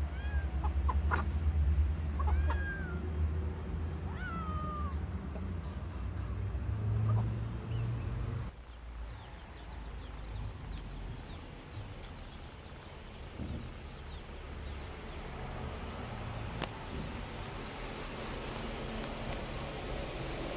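Kittens meowing a few times, short high calls that bend in pitch, over a steady low hum. After a sudden cut, a quieter hiss with many faint high chirps.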